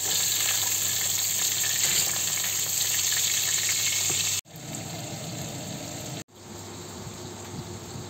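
Duck breasts sizzling in butter in a hot frying pan: a loud, even hiss. It cuts off abruptly about four and a half seconds in, and quieter, lower sounds follow.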